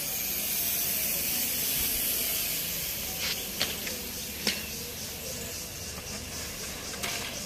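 Steady high hiss of outdoor background noise, with a few sharp clicks around the middle and near the end. From about halfway a faint high pulsing repeats a few times a second.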